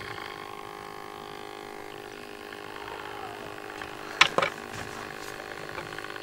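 Model W6 tram's small electric motor running at crawling speed on low power with a steady hum, the power too low to keep its lights steady. Two sharp clicks about four seconds in, and a light regular ticking near the end.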